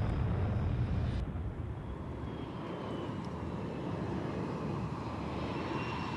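A-10 jet aircraft flying low, a heavy rumble with a faint high whine from its twin turbofan engines. The sound is loudest in the first second, then settles into a steadier rumble.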